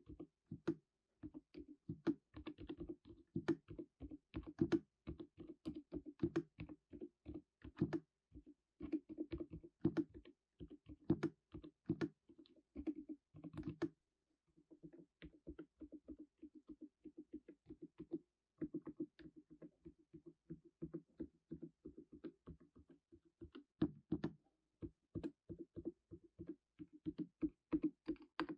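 Fast, continuous typing on the HATOR Skyfall Pro Wireless mechanical keyboard with its Aurum Vanila Silent switches: a rapid run of muted, low-pitched keystrokes, with a brief pause about halfway through.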